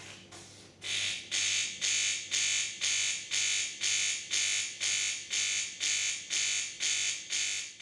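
Pump of a De'Longhi Magnifica ESAM4200 bean-to-cup coffee machine making a loud buzz that pulses about twice a second, louder from about a second in, while no water is delivered: air is trapped in the pump.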